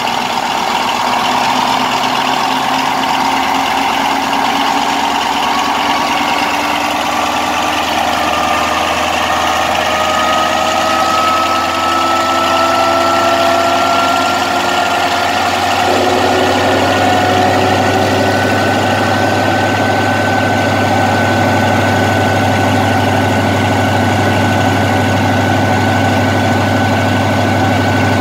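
Pielstick 16PA4V185VG sixteen-cylinder locomotive diesel engine running. Its pitch climbs slowly through the first two-thirds and then holds steady. About sixteen seconds in, a deeper, louder note comes in suddenly.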